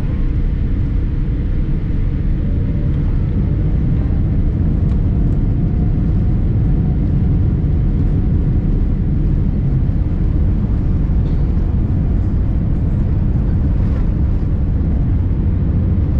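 Boeing 787-8 airliner on its takeoff roll, heard from inside the cabin: a steady, loud, deep rumble of engine and rolling noise, with a few faint rattles.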